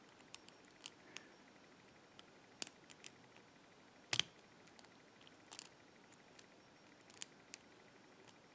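Faint, irregular metallic clicks of a lock pick working the spool pins of a Chubb padlock held in a false set, the loudest click about four seconds in.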